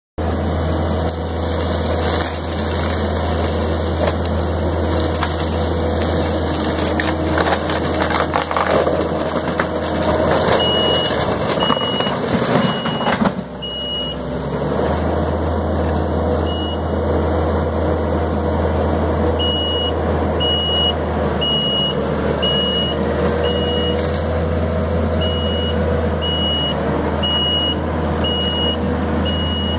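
Kubota SVL90-2 compact track loader's diesel engine and hydraulics running hard, driving a Fecon forestry mulcher head, with a rougher, louder crackling stretch about a third of the way in as the head chews into brush. Its backup alarm beeps evenly, a little faster than once a second, in two spells, the second running from about two thirds of the way in.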